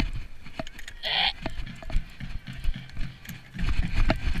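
Rumble and knocks of handling on a body-worn camera as the wearer moves quickly, louder near the end, with one short, high yell about a second in.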